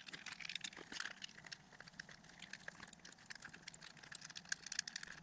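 Faint, scattered small clicks and taps of hands working a plastic turn-signal housing and rubber grommet along a metal lamp-rod tube.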